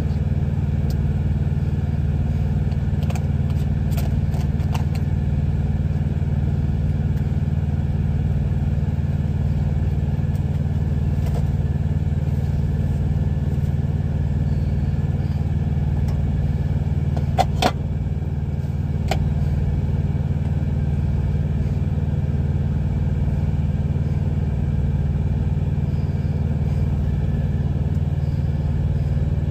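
A truck's engine idling with a steady low drone, with a few light clinks of tongs and dishes, the sharpest about two-thirds of the way through.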